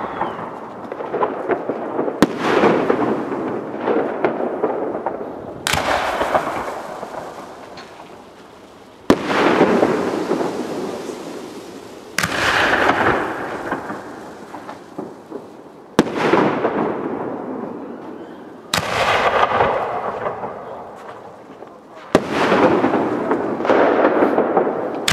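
Aerial firework shells bursting one after another, seven times, about every three to four seconds. Each sharp bang is followed by a crackle that fades away over a few seconds.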